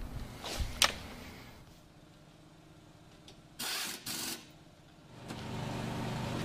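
Pneumatic impact wrench fitting a lawnmower blade: two short bursts a little under four seconds in, tightening the blade bolt. About five seconds in, a steady low mechanical hum starts and keeps going.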